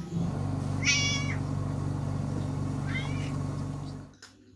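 Domestic cat meowing twice, a loud meow about a second in and a softer one near three seconds, over a steady low hum that stops shortly before the end.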